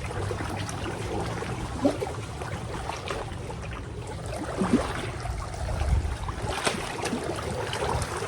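Moving water rushing steadily.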